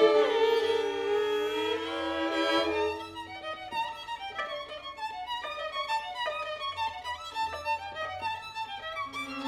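Violin music: held bowed notes with a slight glide in pitch for the first three seconds, then quieter, short detached notes to the end.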